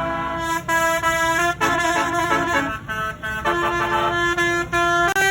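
Basuri 36-note telolet multi-tone bus horn playing a melody: a run of held horn notes that change pitch in steps, several trumpets sounding together, with brief breaks between phrases.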